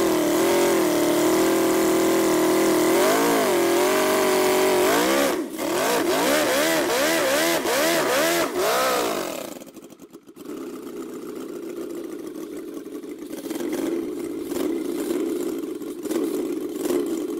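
Miniature multi-cylinder spark-ignition model engine by R. Luther running at a fast idle, then revved in a string of about half a dozen quick throttle blips. About ten seconds in it drops to a lower, quieter idle, and near the end it cuts off suddenly.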